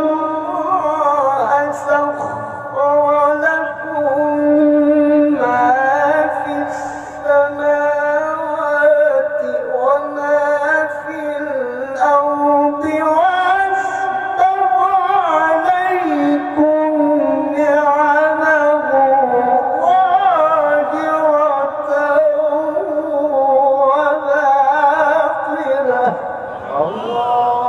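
A man's voice reciting the Qur'an in a long, melismatic sung line, drawing out a phrase through many ornamental turns that rise and fall in pitch, with only brief pauses for breath.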